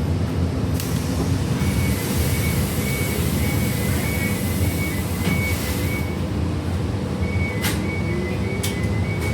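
Inside a city transit bus: the engine runs with a steady low rumble. For several seconds air hisses out while a high warning beep repeats rapidly, and after a short pause the beeping starts again with a couple of sharp clicks near the end.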